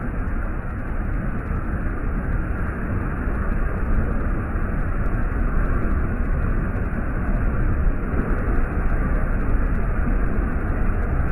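Sea water surging and waves breaking in a continuous, steady rush with a heavy low rumble.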